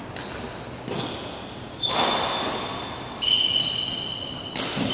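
Badminton rackets striking a shuttlecock in a rally: four sharp cracks, each ringing out in a hall echo. About three seconds in, a high squeak holds for over a second.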